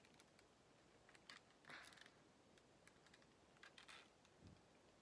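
Faint, scattered small clicks and rustles of hands working a ball-jointed doll's knee joint, pulling the joint out of its socket.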